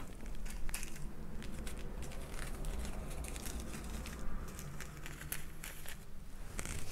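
Small plastic ziplock bags of rhinestone diamond-painting drills crinkling as they are handled, with scattered small clicks from the rhinestones shifting inside.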